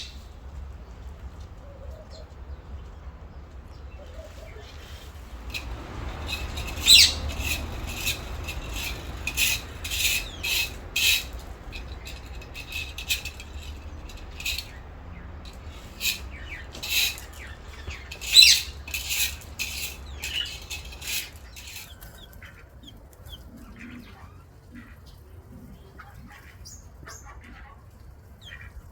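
Bird calling: a run of short, sharp, high chirps starting about six seconds in and going on for some fifteen seconds, with two falling whistled notes among them. A low, steady rumble lies underneath.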